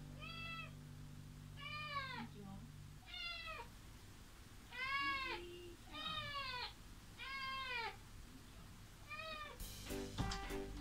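Kitten meowing at a closed door: seven calls, each rising then falling in pitch, at intervals of roughly one and a half seconds. She is crying to call her owner, who is on the other side.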